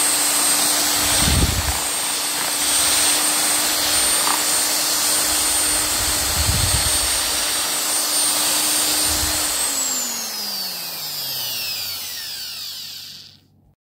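Electric motor driving a balloon whisk through thin cake batter, running at a steady whine with a few dull knocks. About nine and a half seconds in it is switched off and the whine slides down in pitch as it spins down. The sound cuts off near the end.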